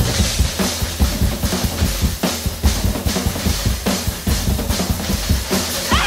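Post-punk rock recording in a drum-heavy passage: a drum kit plays a fast, busy pattern of bass drum and snare hits, with little guitar or bass over it.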